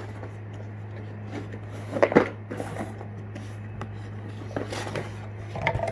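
A cardboard tackle subscription box being handled and opened: knocks, rustling and flap sounds in short clusters, the loudest about two seconds in. A steady low hum runs underneath.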